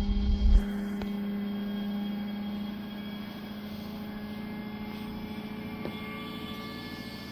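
Steady electrical hum, with fainter steady tones above it. A short low thump, like the microphone or camera being handled, comes right at the start and is the loudest sound.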